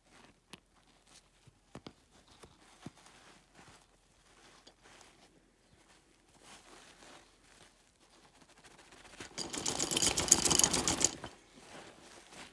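Gloved hands handling a nylon bag: a few faint clicks and rustles, then about two seconds of loud, rapid scratchy rasping as the fabric is rubbed and pressed flat.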